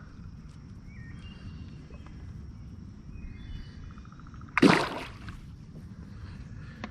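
Steady wind rumbling on the microphone, with one sudden brief splash about four and a half seconds in as the caught bass is put back into the water.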